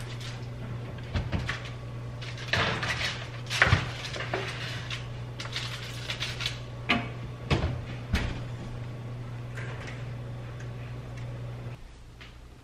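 Oven door opened, a foil-covered baking pan set onto the rack, and the door shut: a string of knocks and metal clatters over a steady low hum.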